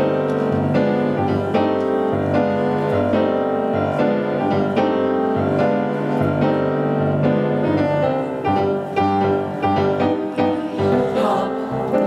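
Grand piano playing the introduction to an upbeat swing number, with a steady beat of chords. Choir voices come in near the end.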